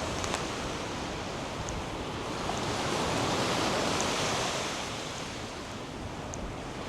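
North Sea surf on a sandy beach: a steady wash of waves that swells as a wave breaks about three to four seconds in, then eases off.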